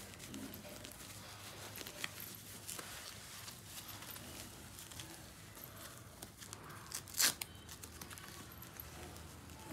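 Disposable diaper rustling and crinkling as it is handled and fitted onto a baby monkey, with one louder, sharp rip about seven seconds in.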